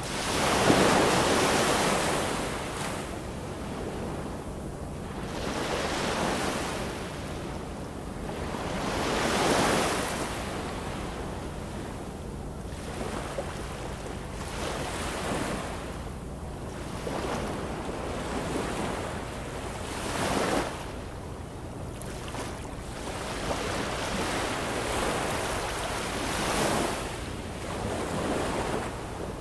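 Ocean waves breaking and washing in, swelling and ebbing every few seconds, over a faint steady low hum.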